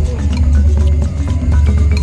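Background music with a steady, heavy bass line and held melody notes.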